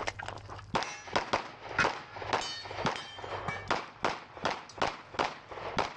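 Glock 17 Gen 5 9mm pistol firing rapid strings of shots, about two to three a second, after a short break near the start.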